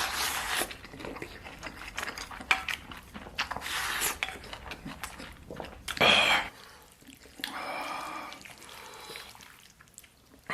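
A man eating braised beef rice with potato noodles: wet chewing and slurping, with many short, sharp clicks.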